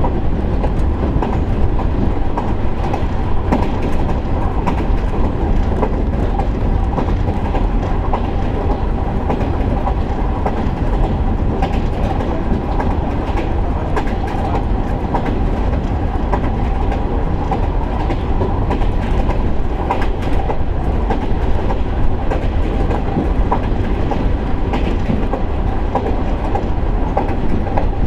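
KiHa 147 diesel railcar heard from inside the cabin while under way: a steady rumble of engine and wheels, with scattered clicks of the wheels over rail joints.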